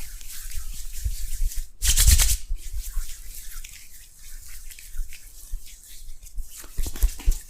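Hands rubbing and massaging skin close to the microphone: continuous crackly rubbing and rustling with soft thumps, and a louder burst of hiss about two seconds in.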